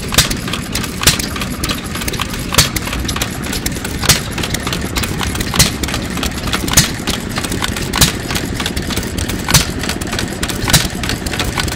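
Around-1924 ARCO Type GH 2 hp hit-and-miss engine, built by Hercules Gas Engine Co., running: a sharp firing pop every 1.2 to 1.5 s, about nine in all, with lighter mechanical clicking of the valve gear while it coasts between them. The uneven spacing is the hit-and-miss governor at work: the engine fires only when its speed falls below the set point, and it coasts with the exhaust valve held open.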